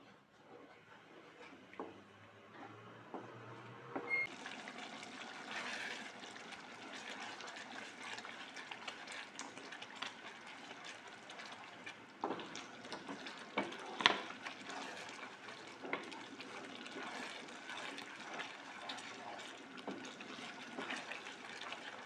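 Thick chilli sambal bubbling and sizzling in a non-stick pan while a wooden spatula stirs and scrapes through it, with a few knocks of the spatula against the pan. The sizzle is faint at first and grows clearly louder about four seconds in.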